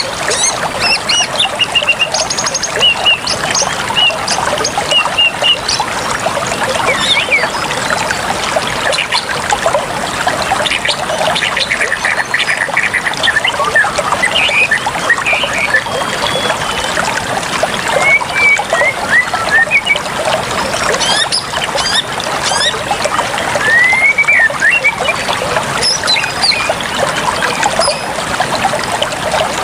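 Running water with birds calling over it in short chirps and gliding whistles.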